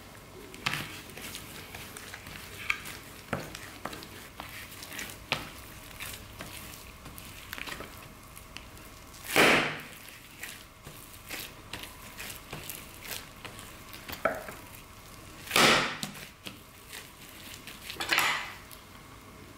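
Soft, sticky bread dough kneaded and folded by a gloved hand on a metal tray, with small tacky crackles and squishes throughout. Three louder squelches come about halfway through and twice near the end.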